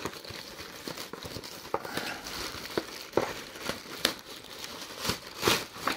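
Plastic mailer bag crinkling as it is pulled open by hand, with many small sharp crackles and a few louder ones near the end as the box inside is drawn out.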